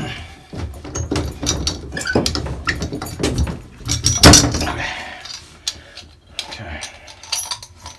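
Metal tools and shower-valve parts clinking and knocking as a handle puller and handle are worked off a shower valve stem, with irregular rattles and a louder knock about four seconds in.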